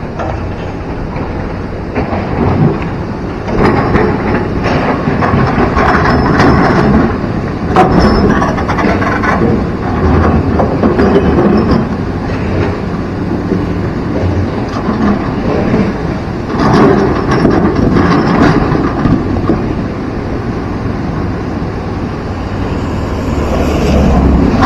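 Sumitomo hydraulic excavator's diesel engine running under load as it works in a fast river, with repeated clanks and knocks as the bucket moves rocks, over the steady rush of the flowing water.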